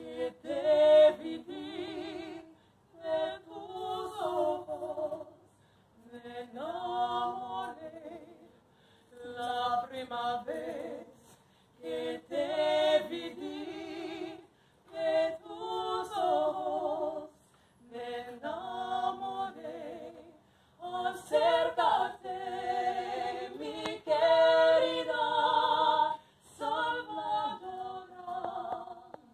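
Two women singing a Ladino song a cappella, in sung phrases a few seconds long with short pauses for breath between them.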